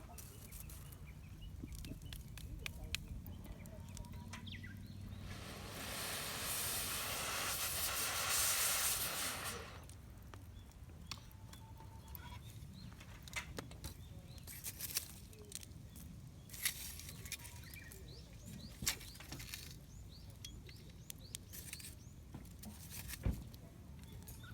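Campfire crackling with scattered small pops, and a louder rushing hiss for about four seconds near the middle.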